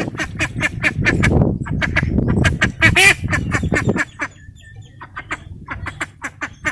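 A flock of waterfowl calling: many short, rapid honks and quacks overlapping, over a low rumble in the first four seconds and thinning out after that.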